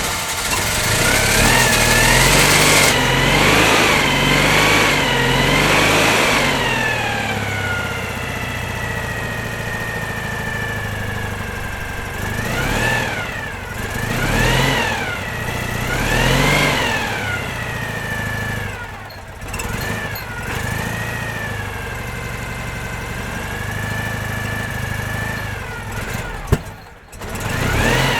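Citroën 2CV's air-cooled flat-twin engine running: it is revved up and down in short blips several times, with stretches of steady idle between. A sharp click sounds near the end.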